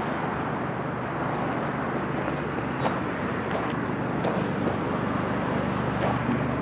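Street traffic: cars passing, with a steady low hum underneath.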